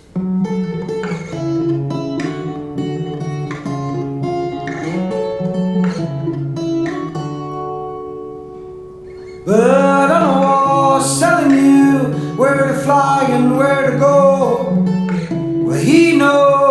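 Acoustic guitar picking the intro of a song. About nine and a half seconds in, the music gets suddenly louder and fuller as further parts with wavering, gliding notes join in.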